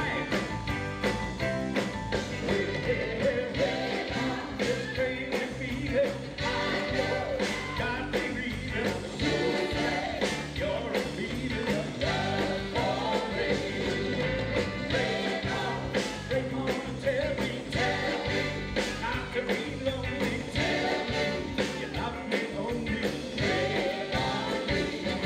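Live rock and roll band playing, with a man singing lead into a microphone over a steady drum beat and keyboards.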